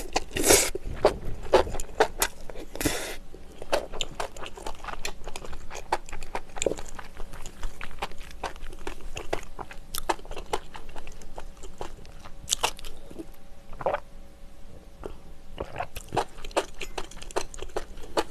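A person chewing a mouthful of food close to the microphone: a steady run of small wet clicks and crunches, busiest in the first few seconds and again near the end.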